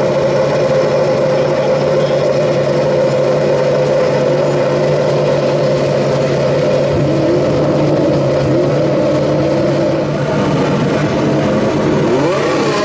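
Mercedes Formula 1 car's 1.6-litre turbocharged V6 hybrid engine idling steadily while the car sits still, then beginning to rev with the pitch rising and falling near the end.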